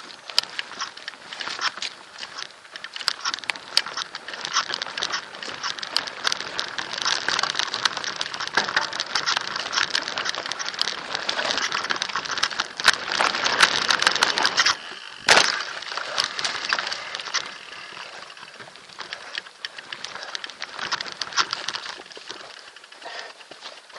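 Haro Extreme X2 mountain bike ridden fast over a rough, leaf-covered dirt trail: a continuous clattering rattle of the bike and tyres with many sharp knocks. About fifteen seconds in the noise briefly drops away, then a single hard thump.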